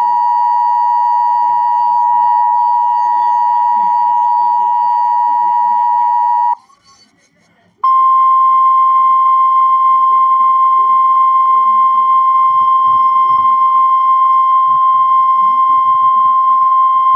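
Emergency Alert System attention signal: a loud, steady two-tone electronic alarm that cuts off about six seconds in. After a second's pause comes a single steady tone, the weather radio warning alarm tone, signalling that a severe thunderstorm warning is about to be read.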